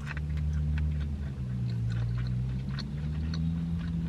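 Crunchy chewing of a mouthful of extra crispy fried chicken drumstick: many small crackling clicks over a low steady hum.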